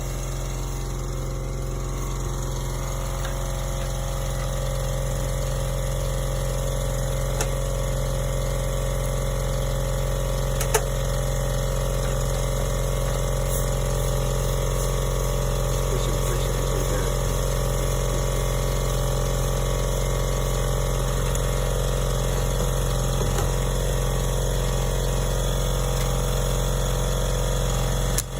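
A 36-inch lawn mower's engine running steadily at a constant speed after a fuel-starvation fault in its fuel line was cleared. There is one brief click partway through.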